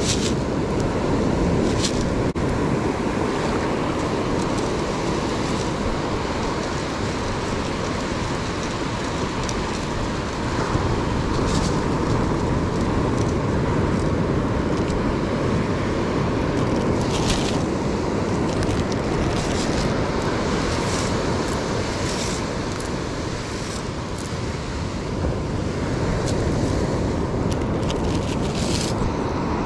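Wind buffeting the microphone over steady surf washing up the beach, with a few short hissy rustles now and then.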